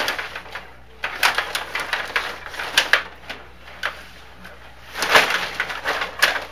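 Stiga rod hockey table in play: a clatter of quick plastic and metal clicks and knocks as the rods are pushed and spun and the figures and puck strike each other, in two flurries, about a second in and again about five seconds in.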